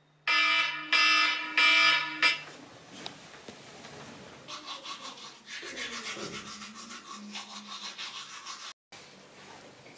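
An electronic wake-up alarm beeps three times in quick succession, each beep a loud buzzing tone about two-thirds of a second long. Quieter rustling follows, then from about halfway a rhythmic rubbing or scrubbing at about three strokes a second.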